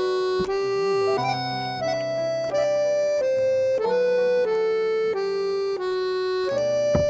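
Accordion playing a melody of held single notes, moving to a new pitch every half second or so, with a brief knock near the end.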